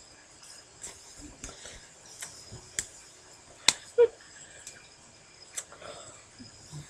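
Scattered sharp clicks and taps from hands striking each other and the body during quick hand movements, about one every half second to second. The loudest is a little under four seconds in, followed at once by a short low squeak.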